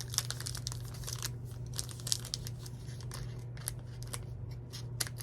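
A trading card pack's wrapper being torn open and crinkled by hand: a run of short crackles and rips over a steady low hum.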